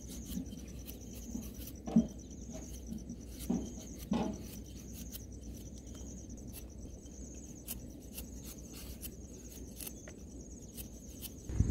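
A few short scraping strokes of a cleaver blade shaving the skin off a daikon radish, the sharpest about two seconds in and again about four seconds in. Over them, insects keep up a steady high pulsing trill.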